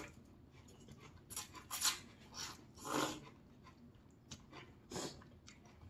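Jjamppong noodles being slurped up from the bowl in several short, hissing sucks.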